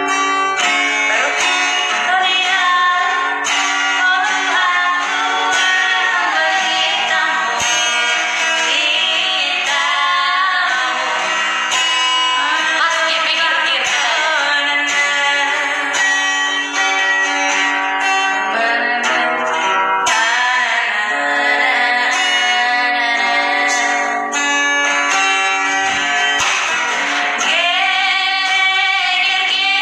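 A woman singing with acoustic guitar accompaniment.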